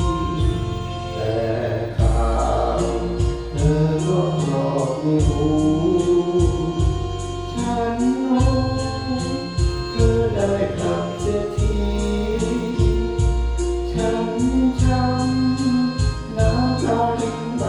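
Music: an instrumental passage of a Thai song, with held melody lines over a bass and a steady beat.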